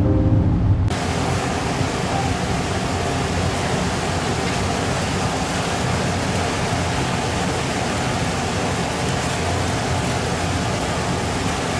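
Eel fillets sizzling on the rack of a glowing grill: a steady hiss that comes in about a second in, when the music cuts off.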